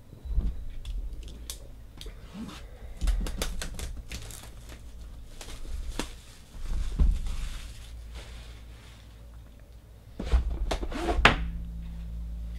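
Plastic shrink wrap being torn off a box and crumpled by hand, crackling in quick clicks, with handling thumps and knocks; the sharpest knocks come near the end.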